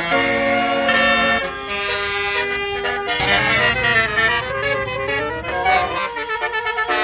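Multi-tone 'telolet' air horn of a Basuri tour bus playing a quick tune, its notes switching every fraction of a second and bending up and down in pitch through the middle of the run.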